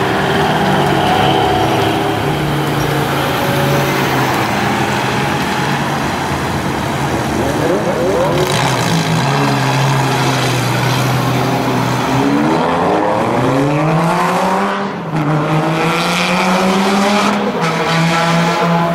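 Loud Lamborghini Gallardo V10 engine running, then accelerating hard twice in the second half, its pitch rising through the revs each time, with a short drop in level between the two pulls.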